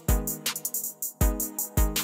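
Background music with a steady beat: a deep kick drum about twice a second, with quick high ticks and held notes over it.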